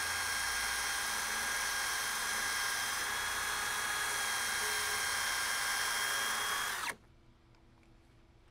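Electric hand drill used as a makeshift lathe, running steadily with a constant whine while it spins a small gun screw that is being cleaned up against sandpaper; it cuts off abruptly near the end.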